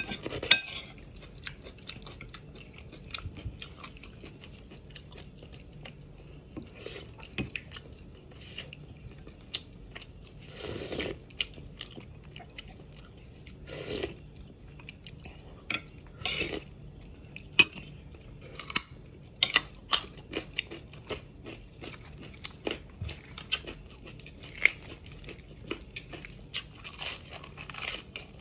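Close-up crunching and chewing of raw vegetables: sharp, irregular crisp bites with a few longer bursts of chewing.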